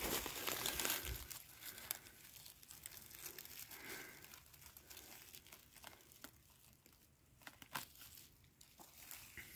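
Irregular rustling and crackling of dry forest-floor litter as someone moves through it or handles it. The sound is densest in the first two seconds, then thins to scattered small snaps.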